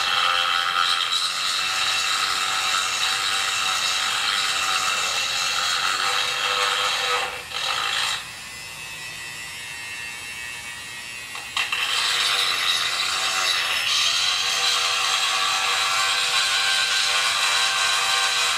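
Dremel 4000 rotary tool running at medium speed with a porting bit, grinding and cleaning up the ports of a Chinese 80cc two-stroke bicycle engine's cylinder: a steady high whine. It drops away for about three seconds near the middle, then starts up again.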